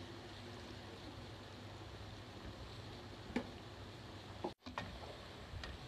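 Potato-spinach pakoras deep-frying in hot oil, a quiet steady sizzle. A few sharp clicks come about three and a half seconds in and again just after the sound cuts out for an instant.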